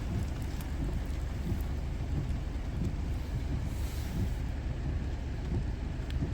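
Steady rain with wind buffeting the phone's microphone, making a constant low rumble, and a few drops ticking near the end.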